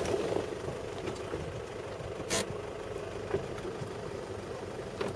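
Modified off-road truck's engine idling steadily while the vehicle stands still, with a brief rush of noise about two and a half seconds in.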